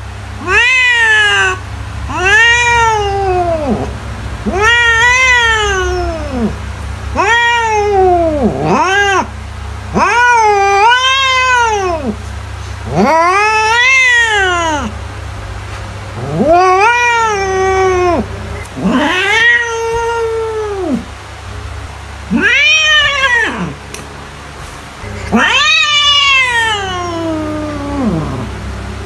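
A cat meowing over and over, about a dozen drawn-out calls, each rising and then falling in pitch, one every two seconds or so. A steady low hum runs underneath.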